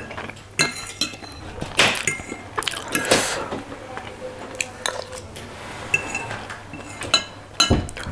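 Metal fork and spoon scraping and clinking against a ceramic plate as the last spaghetti is gathered up, in a run of irregular clinks and scrapes. A dull knock sounds near the end.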